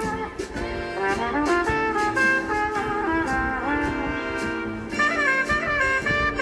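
Instrumental background music: a melody of held and shorter notes over an accompaniment.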